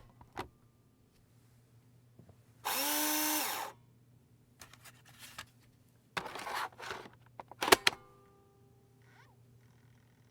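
Disk drive taking in a disk and spinning. Sharp clicks are followed by a loud whir of about a second that rises in pitch, holds and falls, then mechanical rattling and a few sharp clicks, and from about eight seconds in a faint steady hum of the drive running.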